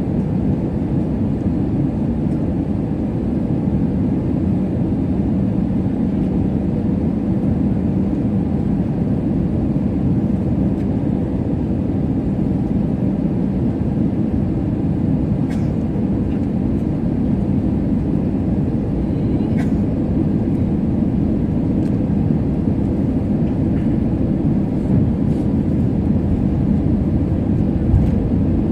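Steady cabin noise inside an Airbus A320-family airliner in descent: a dense low rumble of engines and airflow heard from a window seat over the wing, with a faint steady hum. A couple of faint ticks come through around the middle.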